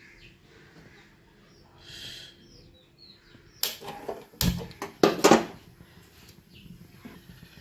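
Gas stove burner being turned on and lit: a few sharp clicks and knocks, the loudest at the moment the flame catches on the burner.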